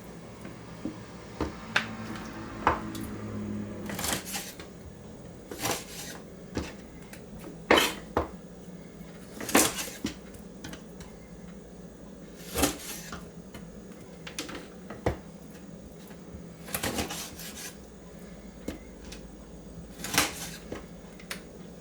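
A kitchen knife cutting chicken wings apart at the joints, its blade knocking sharply on a cutting board at irregular moments every one to three seconds.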